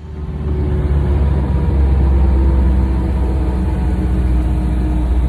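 Boat motor running steadily at speed, a low, even hum that comes up sharply in the first second.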